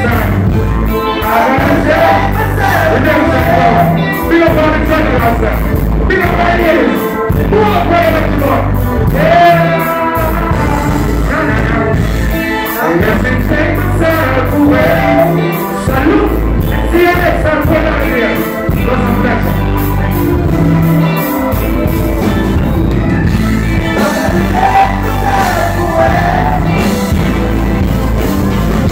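Live reggae band playing loudly through a concert PA: strong bass and drums, electric guitar and keyboards, with a male lead singer's vocals over the band.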